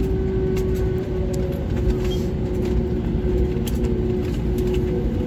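Cabin noise of an Airbus A320neo rolling out on the runway just after landing, with its ground spoilers deployed: a loud steady rumble from the engines and the wheels on the runway, with a steady low engine hum and a few scattered clicks.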